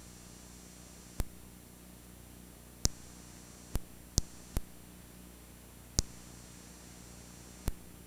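Steady faint electrical hum and hiss of a blank recording, broken by seven short, sharp clicks at uneven intervals.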